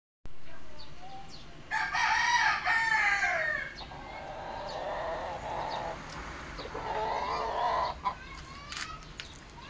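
A rooster crows once, a loud call about two seconds long that falls in pitch at the end. Two quieter, hoarse calls follow, and there is a sharp click about eight seconds in.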